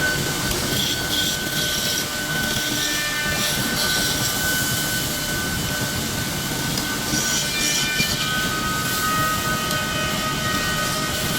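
Woodworking machine running steadily, a constant mechanical noise with a thin high whine held throughout.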